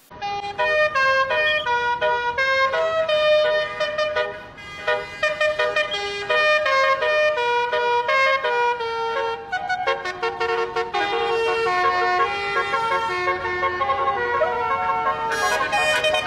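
Indonesian telolet bus horn, a multi-trumpet air horn, playing a fast tune of stepping notes with several tones sounding together, loud and unbroken.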